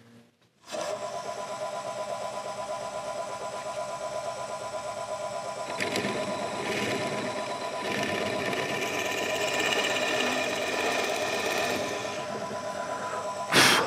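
Drill press starting about a second in and running steadily with a motor whine, its 5 mm bit boring into a walnut guitar body, the cutting noise growing louder from about six seconds in as the bit is fed deeper. A loud sudden burst comes near the end.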